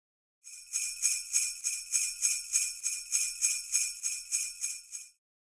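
Jingle bells shaken in a steady rhythm, about three shakes a second, starting half a second in and stopping near the end.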